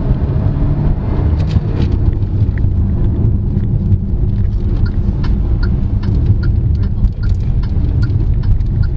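Cabin noise of a 2024 GAC GS3 Emzoom crossover being driven briskly in sport mode: a steady engine and road rumble. A faint, regular ticking joins in about halfway through.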